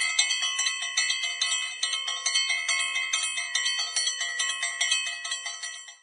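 Bright, high chiming bell tones struck in quick succession, several a second, ringing over one another as an end-screen chime, fading out near the end.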